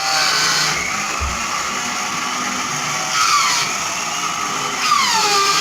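Electric sander running steadily, with a few short falling squeals over its noise.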